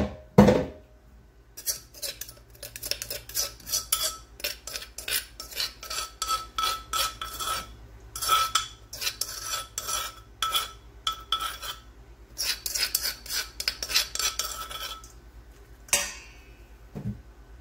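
A metal spoon tapping and scraping rapidly against a clay mortar and a stainless steel bowl, with a ringing note, as the pounded garlic, pepper and coriander-root paste is scraped out into the bowl. A single hard knock opens it, and the tapping stops shortly before the end.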